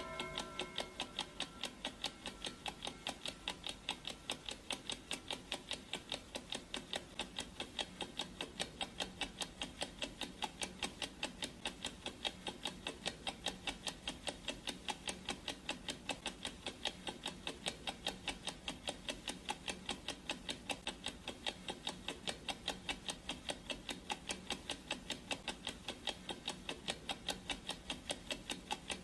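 Clock-ticking sound effect: a steady, even run of ticks for a countdown timer. The last of a gong's ring fades out in the first second.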